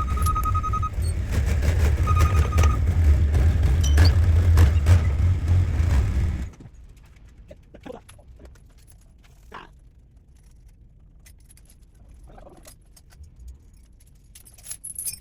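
A loud, low mechanical rumble with a pulsing high-pitched beep. The rumble cuts off abruptly about six seconds in, leaving quiet with scattered light clicks and metallic clinks.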